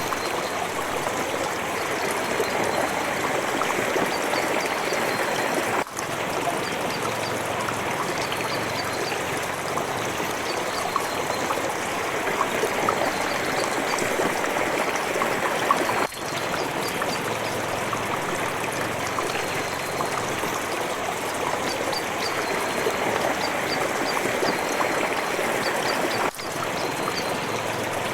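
Water trickling steadily, a continuous splashing flow, with a brief drop in level about every ten seconds.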